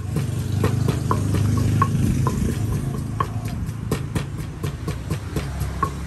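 Wooden pestle pounding in a large clay mortar, a rhythmic knocking about twice a second, with a steady low hum underneath.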